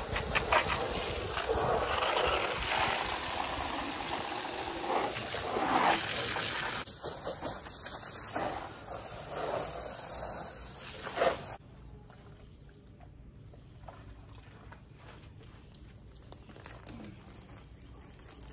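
Garden hose spray nozzle hissing and splattering water against a window pane and the vinyl siding around it. The spray softens about seven seconds in and cuts off suddenly at about eleven and a half seconds.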